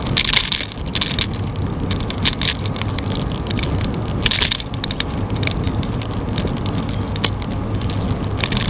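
Bicycle riding along a paved trail, heard from a camera on the bike: a steady low rumble of tyre and wind noise, with frequent small clicks and rattles from the bike and its mount over bumps. Two short, louder hissing bursts come just after the start and about four seconds in.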